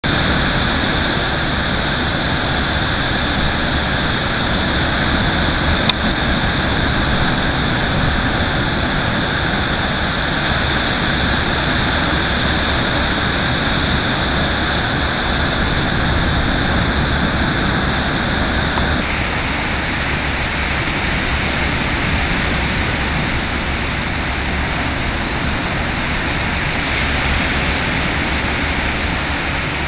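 Steady rushing roar of a rough sea and wind, an even noise with no rhythm of separate waves, and a single faint click about six seconds in.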